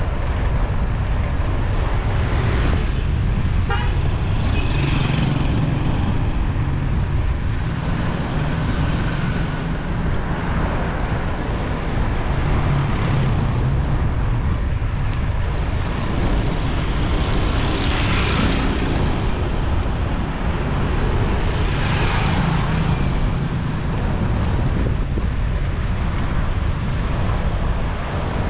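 Road traffic heard from a moving bicycle: a steady low rumble of wind and road noise, with vehicles swelling past twice in the second half.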